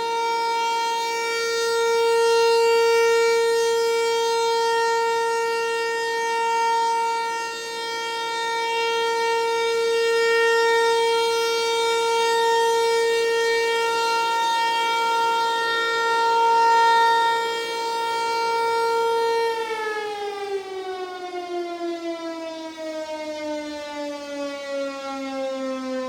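ASC Tempest-135 outdoor warning siren sounding a loud, steady tone that swells and dips in loudness. About twenty seconds in it begins to wind down, its pitch falling slowly.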